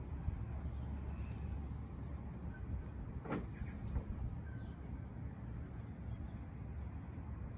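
Outdoor ambience: a steady low rumble, with a faint tap about three seconds in.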